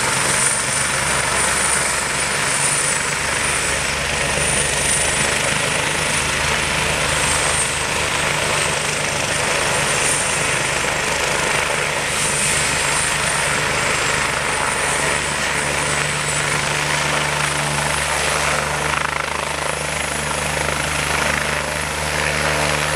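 Air-ambulance helicopter running on the ground at take-off power: a steady high turbine whine over the main rotor's rapid throb and the rush of the downwash. The low throb grows fuller about two-thirds of the way through, and near the end the helicopter lifts off into a low hover.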